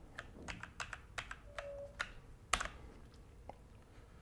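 Typing on a Logitech G413 mechanical keyboard: a quick run of keystroke clicks for about two and a half seconds, then a couple of single key taps.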